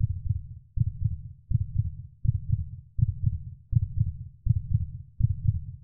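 Heartbeat-like sound: low, muffled double thumps repeating about every three-quarters of a second.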